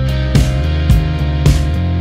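Background music with a steady beat of about two beats a second.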